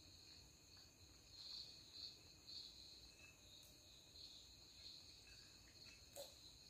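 Near silence with faint, steady insect chirping in the background, swelling in soft pulses about twice a second; a small click about six seconds in.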